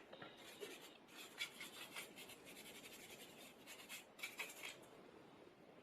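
Faint scratching and light ticking of small tools working against the plastic and metal parts inside a phone, a quick run of short scrapes and clicks.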